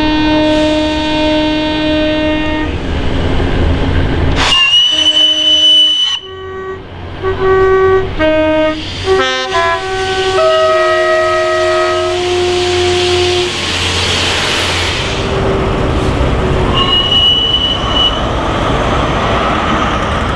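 Train horns sounding repeatedly as trains pass close by. A long horn blast comes first, then a high whistle-like note, a quick string of short two-tone toots, and longer two-tone blasts. The rush of a train running past follows, and the high note sounds once more near the end.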